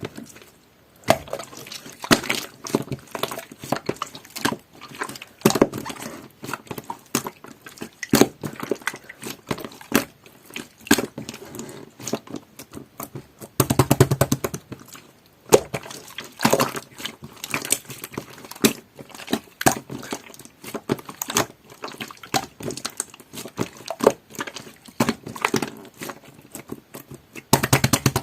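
Jelly-textured slime being squeezed and pressed by hand, making quick wet clicks and pops, with a longer squelch about halfway through.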